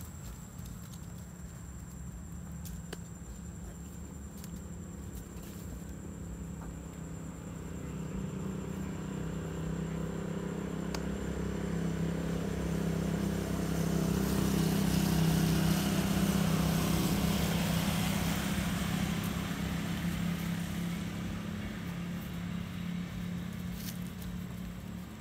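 A motor vehicle's engine passing by: a steady low hum that swells to its loudest about halfway through and then fades, with a faint steady high whine above it.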